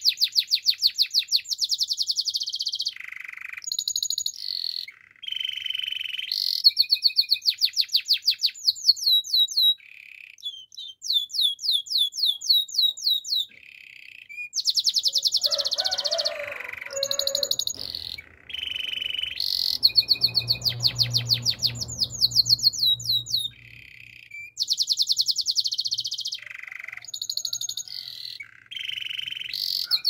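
Canary singing: high-pitched fast trills and rolls of rapidly repeated notes, in phrases of a second or two broken by short pauses.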